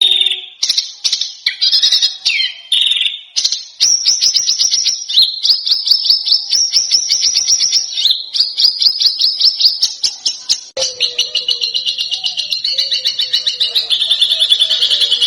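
Songbird singing fast, sharp, repeated notes: a few short separate phrases at first, then near-continuous rapid trills that change pattern about eleven seconds in.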